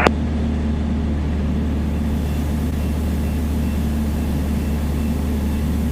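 Piper Dakota's six-cylinder Lycoming engine and propeller droning steadily in flight, a constant low hum. A short click at the very start as a radio transmission ends.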